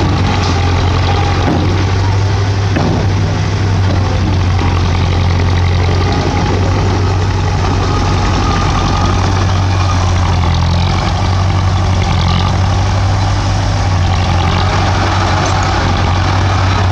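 Heavy diesel engine of a bulldozer running steadily with a deep, even hum.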